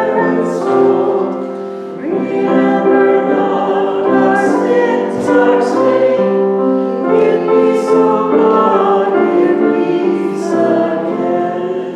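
A church choir singing a hymn with accompaniment, held chords moving from note to note; the singing dies away near the end.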